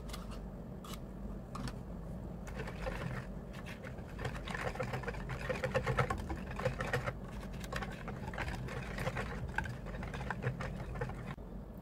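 Metal wire whisk beating a thin milky batter in a plastic bowl: a quick, rhythmic wet clatter and swish of the wires against the bowl.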